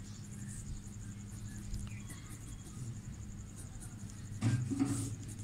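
A cricket trilling steadily in the background, an even pulsing high note, over a low steady hum. A brief low sound comes about four and a half seconds in.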